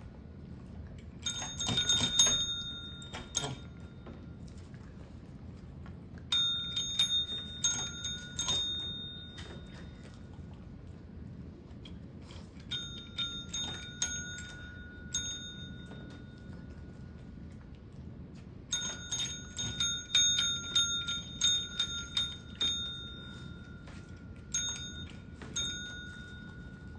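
Small pink tap bells (pet training call bells) pressed repeatedly by a dog and a cat, ringing in about five runs of quick dings with pauses of a few seconds between them.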